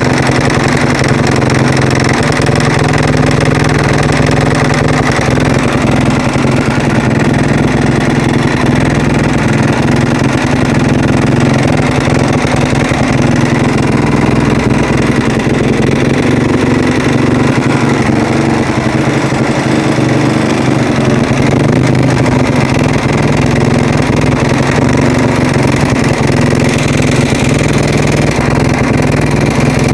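Husaberg motorcycle engine running steadily at a near-constant idle, with the strange noise the owner is trying to pin down.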